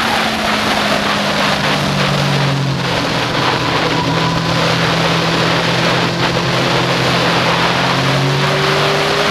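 Yamaha FZ6N's 600 cc inline-four through a Leo Vince aftermarket exhaust, heard from on board: the revs fall in the first second or two, hold steady while the bike is leaned through a long bend, and start climbing again near the end. Wind rush on the microphone runs underneath.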